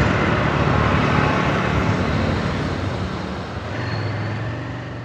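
Motorcycle engine running as the bike rides along the road, under a steady rush of wind and road noise.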